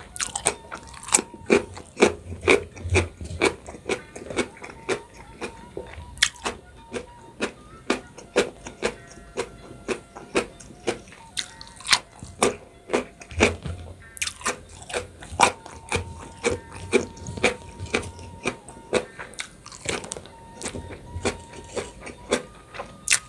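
Close-up crunchy chewing of raw young jengkol beans, with a crisp crunch about two or three times a second.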